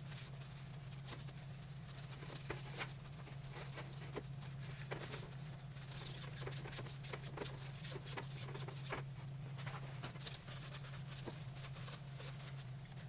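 Light, irregular clicks and taps of small parts and tools being handled, over a steady low electrical hum.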